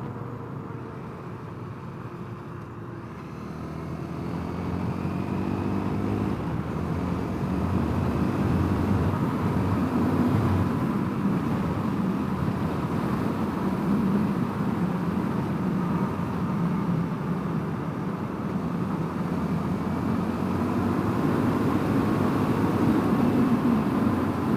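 Honda CRF250L's single-cylinder engine pulling as the bike speeds up, its note climbing about four seconds in. Then steady riding noise: engine, wind and road.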